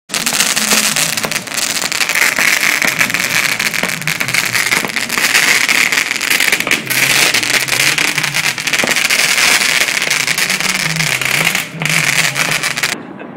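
Fountain firework spraying sparks: a steady rushing hiss thick with crackles that cuts off suddenly shortly before the end.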